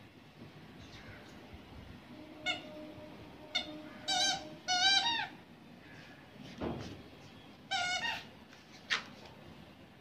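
Rubber tomato-shaped squeaky toy squeaking in short, high squeals, about half a dozen times, as a dog bites down on it, some squeaks brief and some drawn out. A duller thump comes about two-thirds of the way through.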